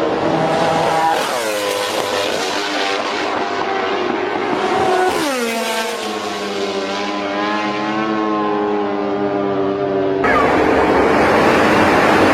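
MotoGP racing motorcycle engines at high revs on track. The pitch drops steeply twice, then holds steady, before the sound switches abruptly to a rougher, noisier engine sound near the end.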